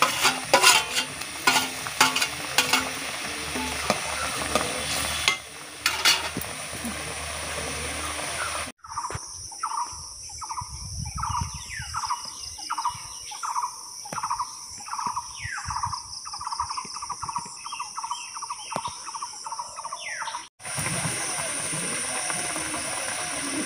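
Rui fish curry bubbling and sizzling in an iron kadai over a wood fire as sliced green chillies go in, with clicks of the metal spatula and bowl. About nine seconds in, this cuts sharply to an outdoor track: a short call falling in pitch, repeated about one and a half times a second, over a steady high insect-like hiss. The cooking sizzle returns near the end.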